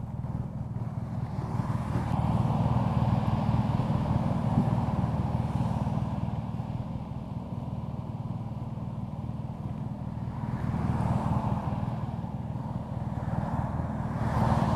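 BMW R nineT's air/oil-cooled flat-twin boxer engine idling steadily, with a steady hiss of heavy rain over it.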